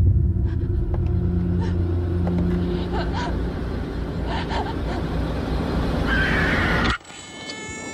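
A loud, low rumble with a few brief higher sounds over it, cutting off suddenly about seven seconds in. A ringing tone with fading overtones follows it.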